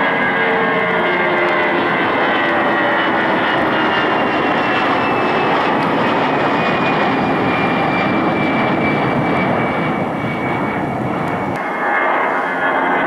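An Airbus A320-family twin-jet airliner's engines at takeoff power as it climbs out overhead: steady jet noise with a whine that slides slowly lower in pitch as it passes. About eleven and a half seconds in, the sound cuts to a thinner, more distant jet noise.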